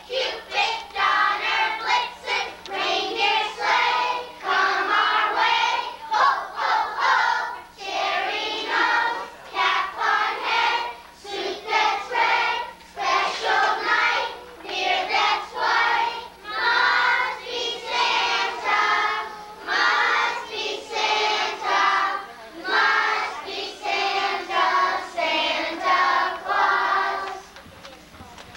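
A group of young schoolchildren singing together as a choir, phrase after phrase; the song ends about a second before the close.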